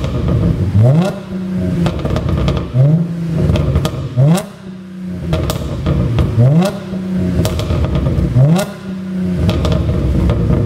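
Audi A7 50 TFSI's supercharged V6 free-revved in about five quick blips. As each rev falls back, the exhaust gives a string of pops and crackles on the overrun, the effect of a pop-and-crackle engine tune.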